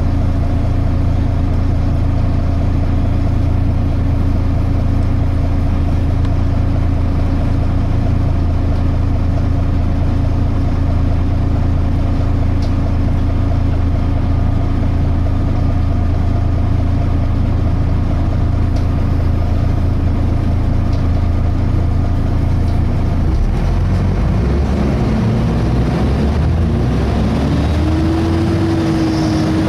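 Volvo B7TL double-decker bus's six-cylinder diesel heard from on board, idling steadily, then revving up about 23 seconds in as the bus pulls away, its pitch rising.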